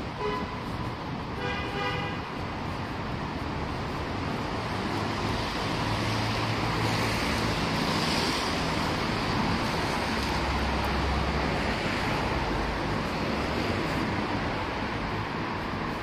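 City street traffic on a wet road: a steady hiss of passing cars' tyres and engines, growing somewhat louder in the second half. A brief pitched sound comes about one and a half seconds in.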